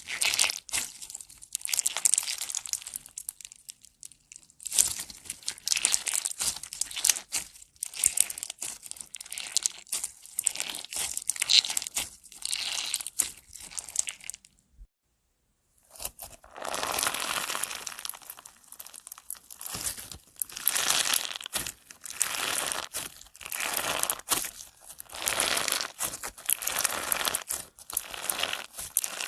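Slime being squished and stretched by hand, giving dense crackling, crinkling sounds in irregular swells. About fifteen seconds in the sound drops to total silence for about a second, then the crackling resumes.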